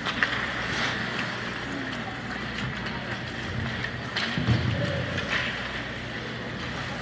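Ice hockey game sounds in a rink: steady background noise with a few sharp clacks of sticks and puck spread through, and faint distant voices.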